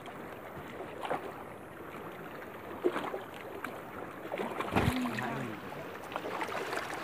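Steady rush of a flowing river, with a few brief knocks and a short voice sound about five seconds in.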